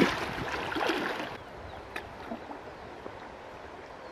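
Shallow river water splashing and sloshing as a person wades and works his hands in it, loudest in the first second or so, then settling to a faint steady wash of flowing water.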